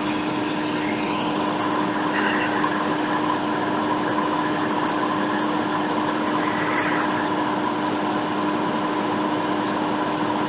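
Hot-air rework equipment blowing steadily with a constant hum while heat is applied to solder a replacement HDMI port onto a console logic board.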